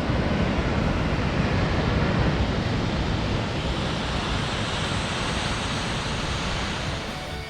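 Toketee Falls pouring: a steady rush of falling water.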